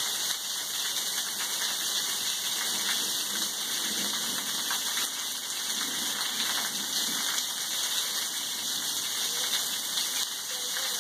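Steady rain falling, a dense hiss with a close patter of drops striking hard surfaces.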